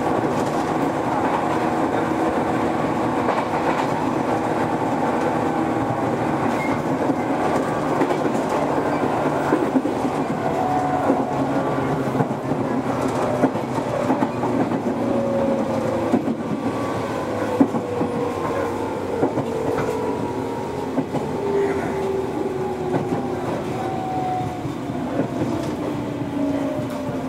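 413 series electric train running, heard from on board, with wheels clicking over rail joints. The motor and gear whine slides steadily down in pitch through the second half as the train slows.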